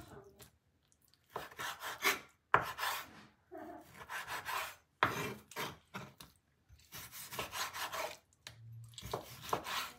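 Chef's knife slicing raw chicken breast on a wooden cutting board: short runs of rasping strokes as the blade draws through the meat, with a few sharp knocks of the blade on the board.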